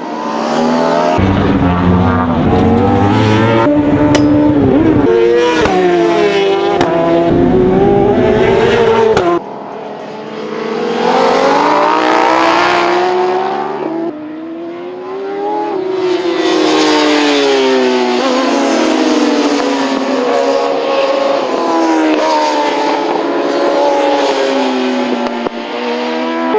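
Superstock racing motorcycles passing on track, engines revving up and dropping back in repeated rising and falling sweeps as they shift gears and brake for corners, several bikes overlapping at times. The sound changes abruptly twice, about a third and halfway through.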